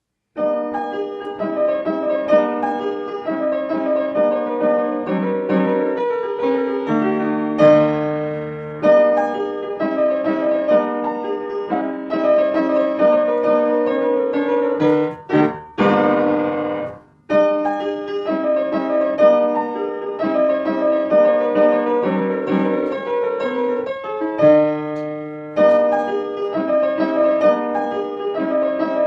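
Background piano music, a steady run of notes with a brief break near the middle.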